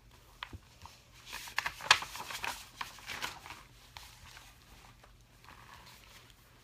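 A paper page of a picture book being turned, a crackly rustle with a few sharp clicks lasting about two seconds, loudest near the middle.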